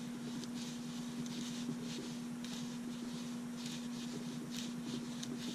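Faint, brief scratching and handling sounds as a small aluminium keychain flashlight is twisted and unscrewed in the hands, over a steady low electrical hum.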